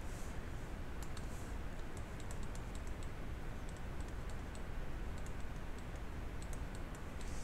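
Light, irregular clicks and taps of a stylus on a tablet screen as numbers are handwritten, over a steady low hum.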